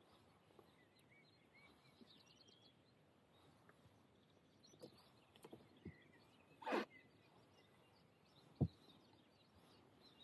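Near silence with faint bird chirps. About two-thirds of the way through there is one short, louder noise, and a sharp knock comes near the end.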